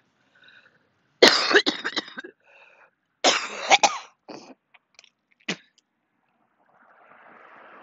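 A woman coughing: two hard coughing fits about two seconds apart, followed by a few short coughs and throat-clearing.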